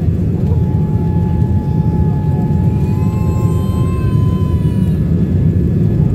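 Boeing 787 cabin noise on final approach with flaps down: a steady low rush of airflow and engines with a steady whine over it. About three seconds in, a higher whine comes in, rises slightly and fades out near five seconds.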